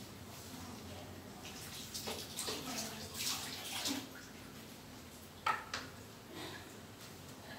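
Water running from a kitchen tap and splashing for a couple of seconds as something is rinsed under it, then a sharp knock on the counter a little after five seconds in.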